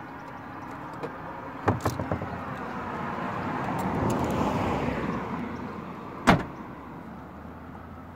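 Peugeot 2008 tailgate being pulled down and shut with one loud slam about six seconds in, after a few lighter clunks from handling the boot.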